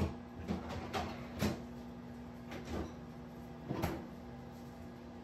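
Knocks and clatters of dishes and containers being handled and set down on a kitchen counter, about seven in the first four seconds, over a steady appliance hum.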